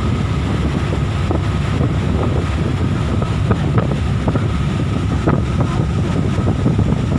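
Fast ferry under way: a steady low rumble of the boat running at speed, with wind buffeting the microphone and a faint steady high tone.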